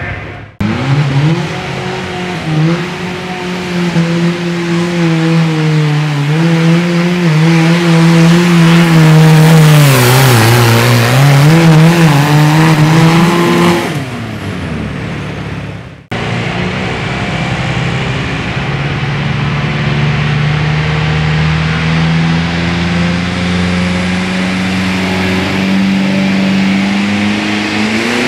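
Diesel garden pulling tractor engines running hard under load as they pull the sled, in two runs cut together. The first engine's pitch wavers and sags about halfway through, recovers, then falls away. After a cut, a second engine climbs steadily in pitch.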